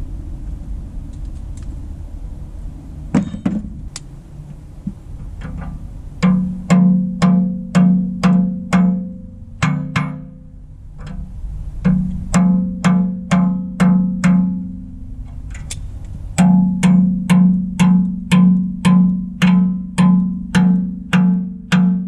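Hand hammer striking a steel bucket tooth on a backhoe bucket, in runs of blows about two a second starting some six seconds in, each blow leaving the steel bucket ringing in a low tone. Before that, a low steady rumble with a couple of knocks.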